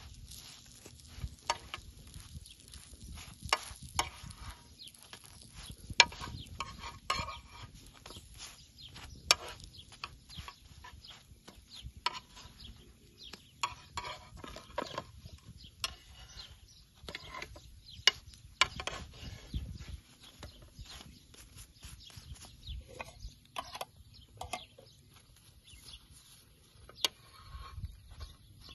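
A metal spoon tapping and scraping on a steel griddle pan as flatbreads are pressed and turned over a crackling wood fire, heard as irregular sharp clicks and taps.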